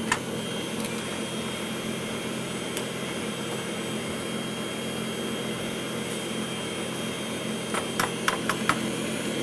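Kenwood Cooking Chef stand mixer running steadily, its whisk beating the hot choux paste to cool it, a continuous motor hum. About eight seconds in, a few sharp clicks as eggshells are cracked against a bowl.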